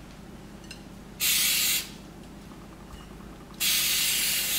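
Aerosol can of canola-oil cooking spray hissing in two short bursts, about a second in and again near the end, the second a little longer.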